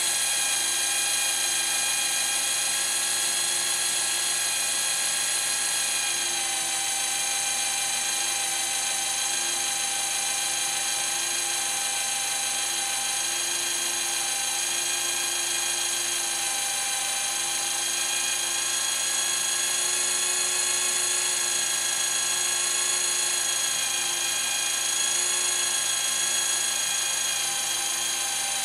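Electric hand drill running at a steady speed as a Würth black-and-gold twist bit cuts through the side of a grade 8 steel bolt under light pressure, with a steady whine.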